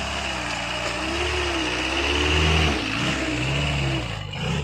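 Jeep CJ7 engine running under load while crawling off-road, its revs rising and falling several times, and easing off near the end.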